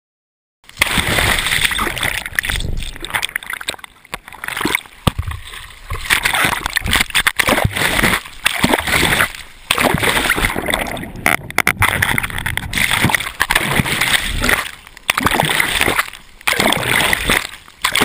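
Ocean whitewater splashing and rushing over a wrist-mounted GoPro in its waterproof housing, starting about half a second in, with the sound dropping away briefly several times as the camera goes under and comes back up.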